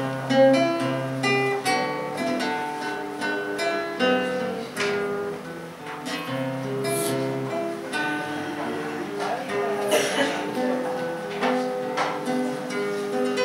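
Solo classical nylon-string guitar played fingerstyle: a plucked melody over bass notes, with a few fuller strummed chords.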